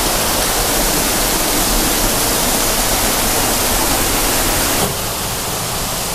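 Waterfall rushing loudly and steadily close by; the rush drops a little in level about five seconds in.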